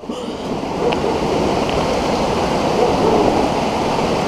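Hailstorm: hail and rain pelting down in a dense, steady roar, with a few faint sharp ticks of hailstones striking.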